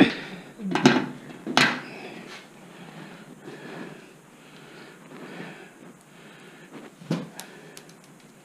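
Sharp metallic clanks and knocks of tools and parts against an old car's sheet-metal fender while it is being unbolted: three in the first two seconds, then two more about seven seconds in, with low clatter between.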